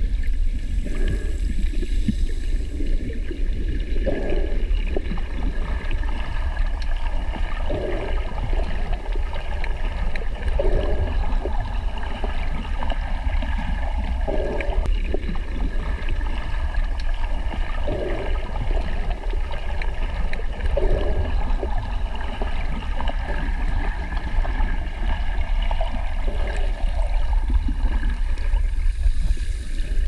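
Underwater ambience: a steady low rumble with soft gurgling swells of water every three or four seconds.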